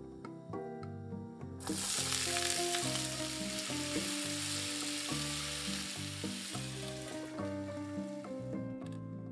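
Raw potato slices sizzling in hot vegetable oil in a frying pan, starting suddenly about two seconds in and slowly dying down, while a spatula stirs them. Soft background music plays underneath.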